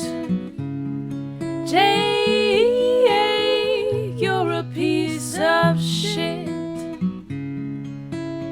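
Intro music: acoustic guitar playing with a singing voice, the voice coming in about two seconds in and again around five seconds.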